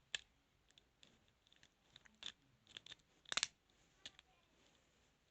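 Faint metal clicks and scrapes of a lock pick working inside a padlock: a handful of small, separate clicks, the loudest about three and a half seconds in.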